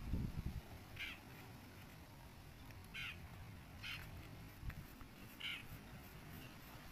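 Four short, faint calls from a bird, spaced one to two seconds apart.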